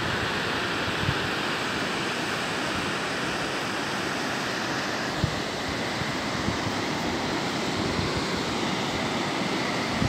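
Steady rush of a rocky mountain stream cascading in small waterfalls over boulders, with a few brief low bumps of wind on the microphone.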